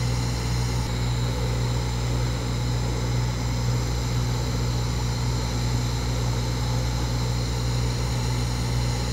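TIG welding arc burning on thin-wall titanium tubing: a steady electrical hum with an even hiss over it.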